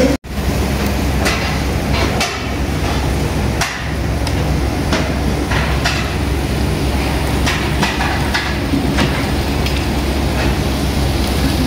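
Meat sizzling on a Korean barbecue tabletop grill, with irregular sharp clacks of metal tongs and utensils. The sound cuts out briefly just after the start.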